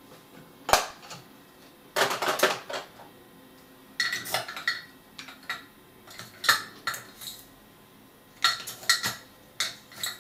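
Makeup brushes and products clinking and clattering as they are put down and picked up: an irregular series of light clicks and knocks, some with a short ring.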